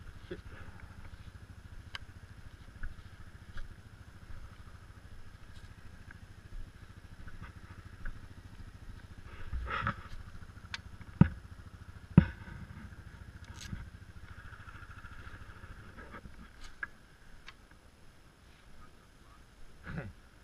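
ATV engine idling steadily, with a few sharp knocks and clicks over it. The engine sound fades out near the end.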